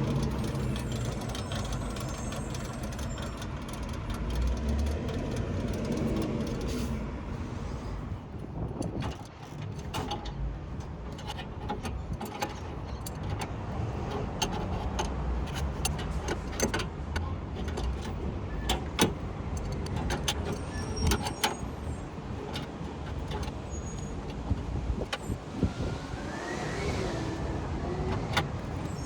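Old Temperzone packaged air-conditioning unit running with a steady low hum, with irregular clicks and knocks from about a third of the way in. The noise is put down to its old contactor and condenser fan, both described as just noisy.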